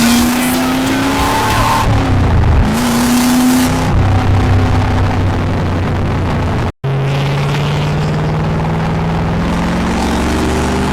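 1973 Chevrolet Corvette's V8 accelerating through a manual gearbox: the engine note climbs, drops at a gearshift about two and a half seconds in, and climbs again. After a brief break in the sound about two-thirds of the way through, the engine runs on at a steady, slowly rising pitch.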